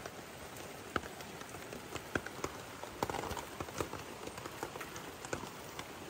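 Light rain falling, with scattered drops tapping at irregular moments on a plastic tarp shelter.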